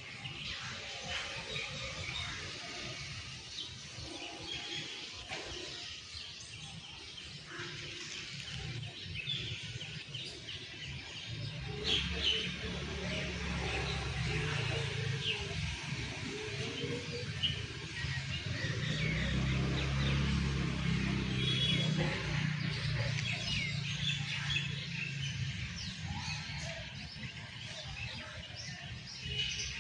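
Several birds chirping and calling in quick short notes. A low steady rumble rises under them about halfway through and fades out again near the end.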